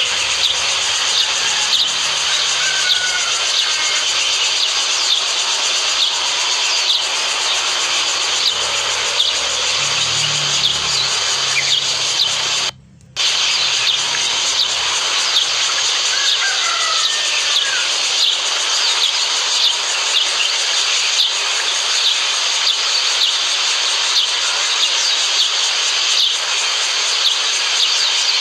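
Outdoor ambience: a steady high hiss with a short high chirp repeating between one and two times a second, and a few faint bird calls. The sound cuts out briefly about halfway through.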